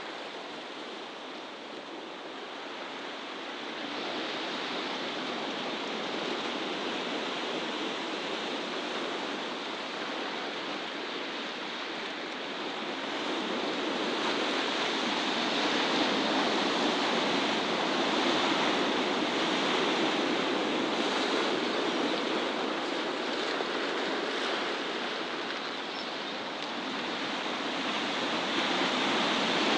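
A steady rushing noise with no distinct events, swelling somewhat in loudness a few times.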